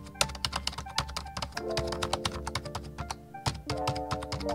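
Intro music: held chords that change every second or two, over a fast, continuous run of clicks like typing on a computer keyboard.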